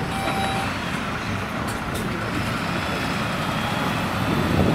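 Fire engine's diesel engine running as the truck pulls out onto the road, with one last reversing-alarm beep near the start. The engine gets louder near the end as the truck moves off.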